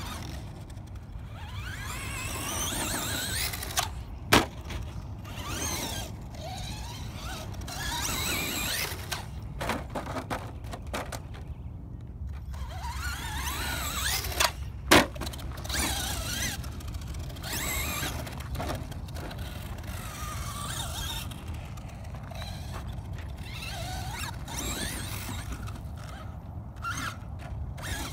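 Traxxas Slash 2WD RC monster truck's brushless motor and geartrain whining, rising and falling in pitch as the throttle is worked. Two sharp knocks, the loudest sounds, come about a quarter of the way in and about halfway, as the truck lands off the dirt jumps.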